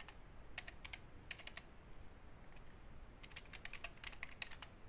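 Faint typing on a computer keyboard: quick runs of keystrokes with short pauses between them.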